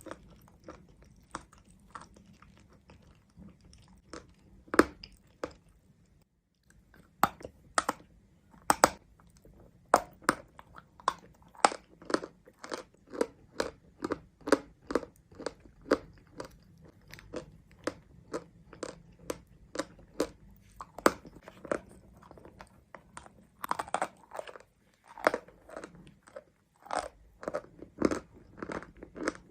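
A person biting and chewing pieces of mountain chalk close to the microphone: a steady run of sharp, dry crunches, often two to three a second, with a few louder bites and a couple of short pauses.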